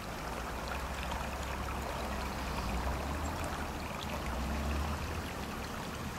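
Creek water flowing steadily: an even rushing sound with a low rumble underneath.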